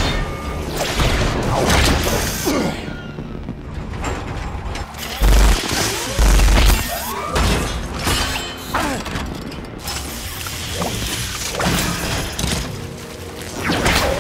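Fight sound effects of armoured suits clashing: rapid metal clanks, scrapes and impacts throwing sparks, with two heavy low booms about five and six seconds in. Near the end, electric energy whips lash and crackle.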